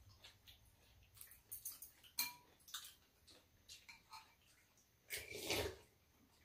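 Metal spoons and chopsticks clinking against ceramic soup bowls during a meal: a few sharp clicks, some with a short ring, then a longer, louder eating sound about five seconds in.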